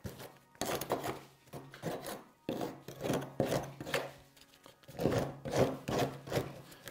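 Steel hand scraper raking rotten, crumbling wood out of a decayed section of a timber plank in a series of rough, irregular scraping strokes.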